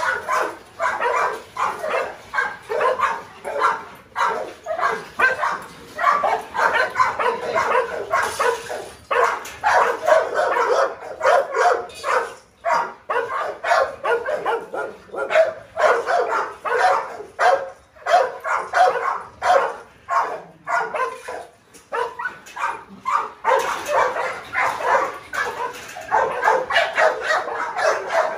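Several kennelled dogs barking and yelping over and over at feeding time, the calls coming several a second with only brief lulls.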